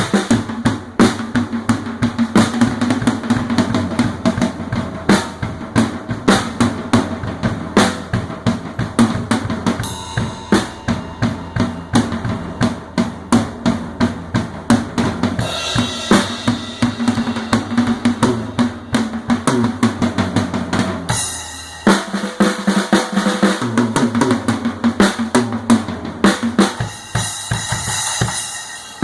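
PDP Platinum acoustic drum kit with a Pork Pie snare played continuously: fast strokes on bass drum, snare and toms, with cymbals washing in at times. The bass drum drops out briefly past the two-thirds mark before the beat picks up again.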